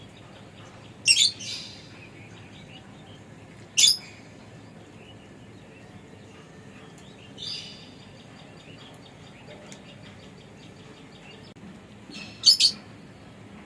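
Lovebirds chirping: a few short, sharp, high chirps several seconds apart, the last a quick pair near the end, over soft rapid chattering.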